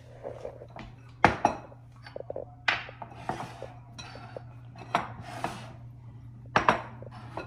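Glass mixing bowls and a spoon knocking and clinking as they are picked up and set down on a wooden cutting board: a series of sharp knocks, the loudest about a second in and near the end, over a steady low hum.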